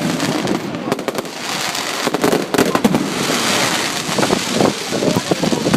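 Fireworks display: a dense run of pops and crackles from bursting shells, with a stretch of hissing crackle from about three seconds in.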